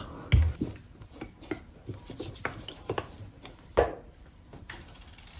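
Hands handling a cardboard drink carton and a small stainless-steel pot on a kitchen counter: a dull thump about a third of a second in, then light clicks and rubbing as the carton is opened, with a sharper click near four seconds.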